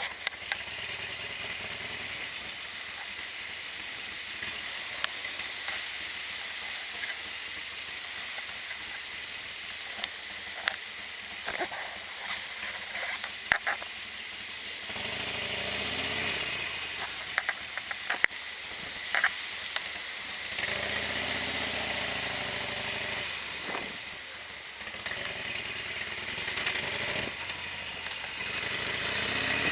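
Harley-Davidson Sportster XL1200R's V-twin engine running under a steady hiss, with scattered sharp clicks and knocks in the first half; the engine's low note grows louder about halfway through.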